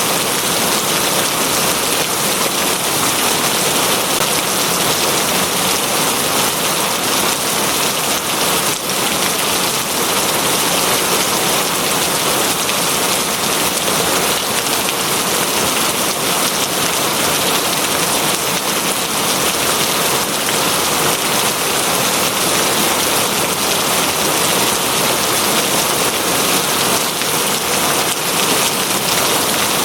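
Rain falling steadily: an even, unbroken hiss with no thunder.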